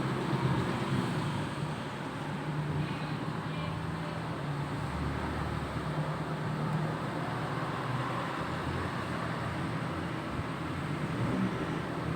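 Steady background rumble with a low hum, without any distinct single event.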